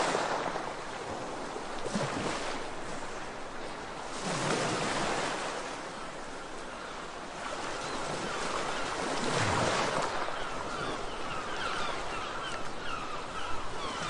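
Sea waves washing onto a shore, the surf swelling and fading every few seconds, with birds calling in quick, repeated short notes from a little past halfway.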